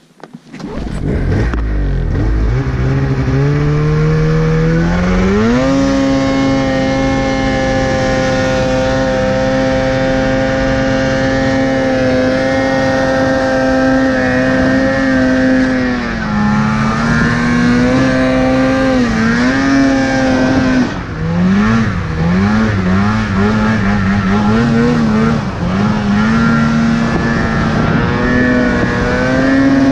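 Snowmobile engine under heavy throttle in deep powder. It winds up in pitch over the first few seconds and holds a steady high note, then rises and falls quickly several times past the middle as the throttle is worked, before settling again.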